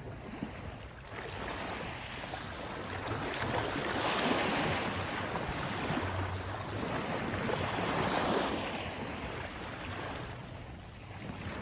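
Sea waves washing in: a rush of water that swells and eases in slow surges, peaking about four and eight seconds in.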